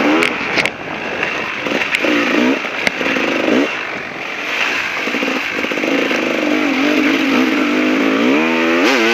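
KTM 380 two-stroke dirt bike engine revving on and off in short throttle bursts. A longer pull from about halfway through climbs sharply in pitch near the end.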